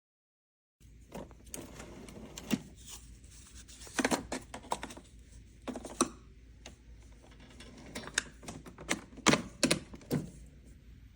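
Irregular sharp clicks and knocks of objects being handled over a low steady hum, starting a moment in.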